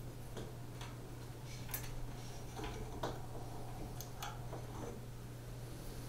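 Faint, irregular light metallic clicks of an Allen key turning out the last mounting screw of a 3D printer's extruder stepper motor.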